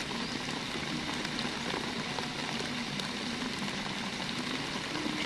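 Light rain falling steadily: a soft, even hiss with a few faint ticks of drops.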